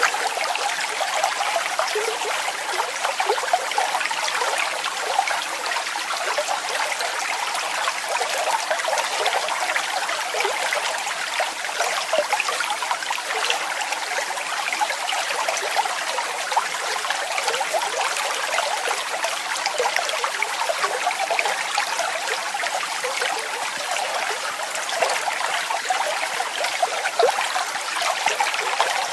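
Falling water splashing and trickling in a steady rush, with fine spattering detail and no let-up.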